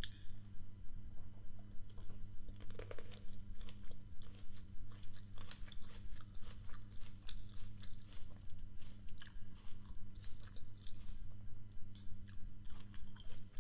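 Close-up mouth sounds of biting and chewing grapes: many small wet crunches and clicks, irregular and continuous, over a steady low hum.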